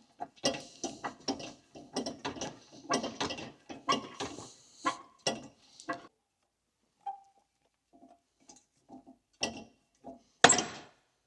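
Shop press working on a driveshaft universal joint: a run of metallic clicks and knocks for about six seconds, then a few light ticks, then one loud sharp crack near the end as the old universal joint's bearing cap breaks free and is pushed through the yoke.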